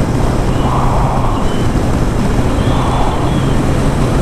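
Kawasaki ZX1000 sport bike's inline-four engine running at a steady cruise, with wind rushing over the microphone and swelling briefly twice.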